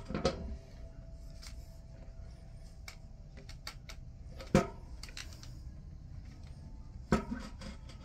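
Light clicks and taps of a trike wheel's hub being handled and slid onto its axle, with a sharp knock about halfway through and another near the end.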